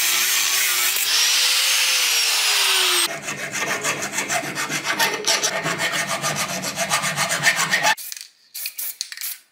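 Angle grinder grinding a small metal bracket for about three seconds, its motor pitch rising and then falling. Then a hand file rasps over the bracket in quick repeated strokes, thinning to a few strokes near the end.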